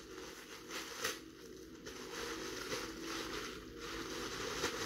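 Bubble wrap crinkling and rustling as it is handled and pulled open, with a few sharper crackles.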